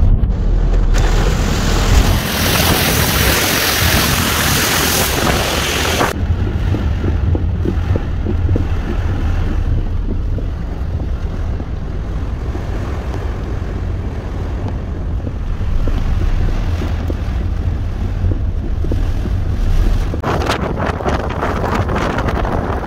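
Rain and wind heard from inside a moving car: a loud hiss of rain for several seconds starting about a second in, then a steady low rumble of the car and wind. Near the end, wind gusts on the microphone.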